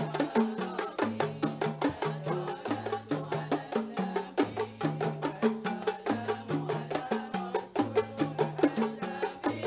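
Live qasidah music: a group of rebana frame drums beating a steady, even rhythm over a bass line that steps from note to note.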